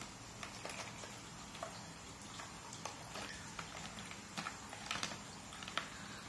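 Small plastic parts and wired components being handled in a cardboard compartment box: light, irregular clicks and taps over a steady background hiss.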